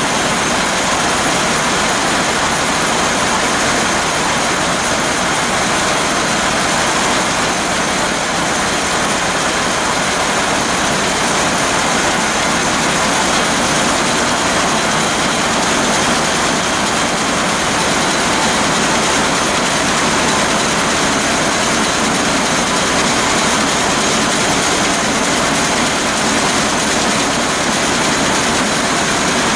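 Burmeister & Wain seven-cylinder two-stroke marine diesel (DM742 VT2 BF90) running at a steady speed, heard up close beside its exhaust valve gear: a loud, dense, unchanging mechanical noise.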